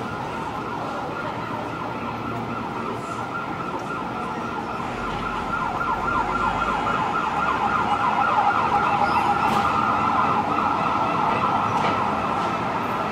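Emergency vehicle siren on the streets below, sweeping rapidly up and down in pitch. It grows louder about halfway through and eases off slightly near the end.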